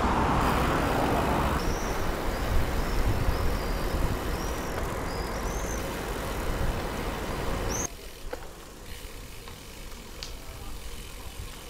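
Wind rushing over an action camera's microphone and bicycle tyres rolling on asphalt while riding, with a few short high chirps. Near the eight-second mark the sound cuts abruptly to a much quieter hiss with a single click.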